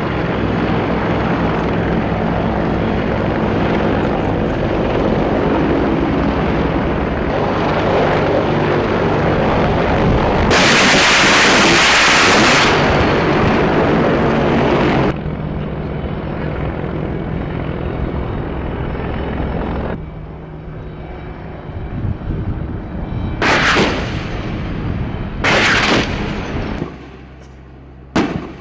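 AH-64 Apache attack helicopter flying with its rotor and twin turboshaft engines running loud and steady. About ten seconds in comes a loud burst of fire lasting about two seconds from its 30 mm M230 chain gun. Later there are two sharp blasts with trailing rumble and several quick cracks as rounds strike the target.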